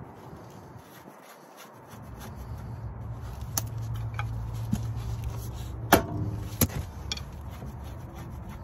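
A few light, sharp metal clicks and taps as a bolt is worked by hand at the wheel hub, over a steady low background rumble.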